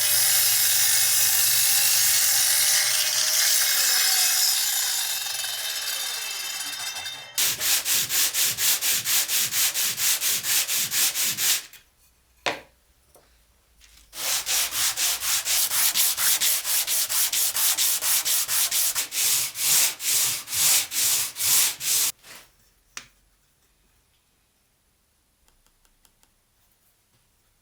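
Sandpaper being rubbed over wood. First comes a steady rasping for about seven seconds, then two spells of even back-and-forth hand-sanding strokes at roughly two to three a second, with a short pause between them; it goes quiet for the last few seconds.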